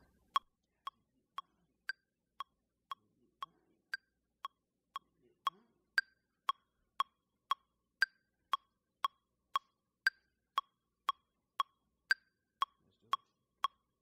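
Electronic metronome clicking at about two beats a second (around 120 BPM). Every fourth click is higher-pitched, marking the first beat of each bar.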